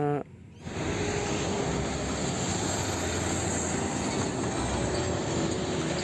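Fuel tanker semi-truck driving along a road in traffic: a steady rumble of engine and tyre noise that begins about half a second in.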